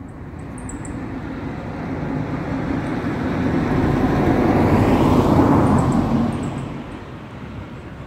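A road vehicle passing by: its noise builds steadily for about five seconds, peaks, then falls away quickly.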